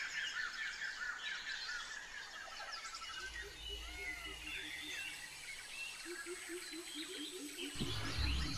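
Small birds chirping, with fast runs of repeated high notes and a lower, steadily repeated call, over a faint low rumble that swells about three seconds in and again near the end.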